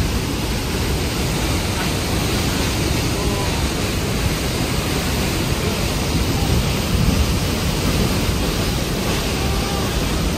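Trümmelbach Falls, a glacier-fed waterfall, rushing through its rock gorge as a loud, steady wash of churning white water.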